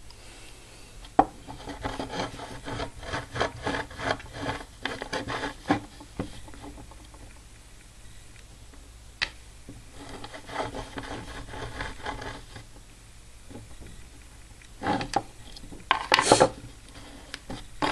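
Short scraping strokes and clicks as a mortise lock cylinder is worked apart by hand. Two runs of rapid scraping come with a pause between them, then a few sharper clicks near the end.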